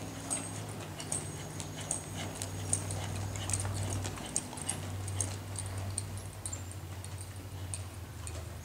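Saddled horse walking on arena dirt: soft, irregular hoofbeats with light clicks and jingles of tack, over a steady low hum.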